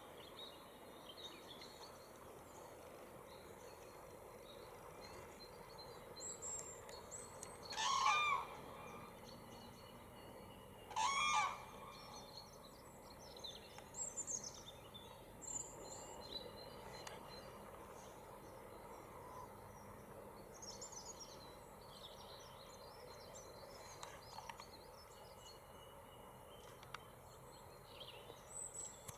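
Common cranes calling: two loud, harmonic calls about three seconds apart, each under a second long. Fainter high chirps of small birds are heard scattered through the rest.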